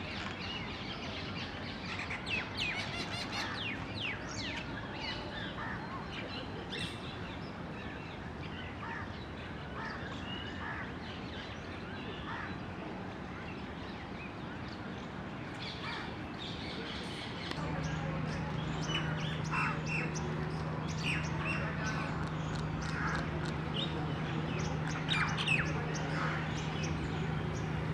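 A chorus of many short, high chirps and calls from birds and Indian palm squirrels. A steady low hum comes in about two-thirds of the way through.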